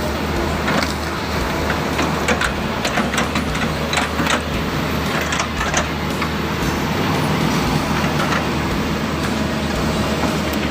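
Hitachi 130 excavator's diesel engine working under load, with a run of sharp cracks and knocks for the first several seconds as the machine breaks through forest growth.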